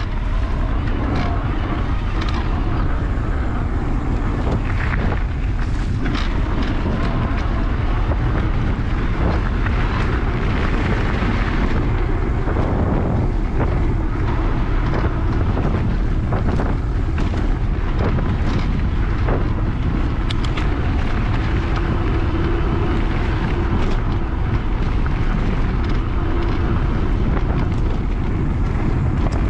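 Wind rumbling over a camera microphone on a moving mountain bike, a steady low roar from the ride along a dirt singletrack. Scattered clicks and rattles from the bike jolting over bumps.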